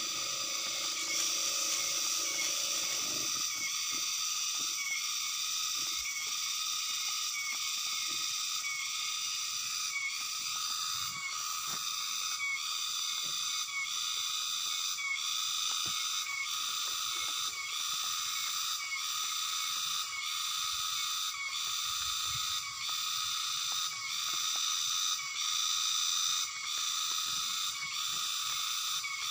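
Insect chorus: a steady high-pitched droning that pulses about once a second.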